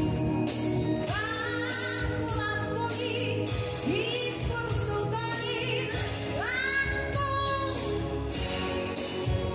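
Pop-rock song with a female lead vocal held in long gliding notes with vibrato, over a band with steady drum beats and bass.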